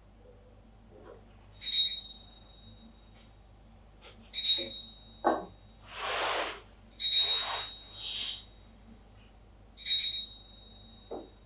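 A small bell-like sound struck four times, about every two and a half to three seconds, each strike ringing briefly with bright high overtones. Between the strikes come two short, soft hissing sounds and a couple of brief lower tones.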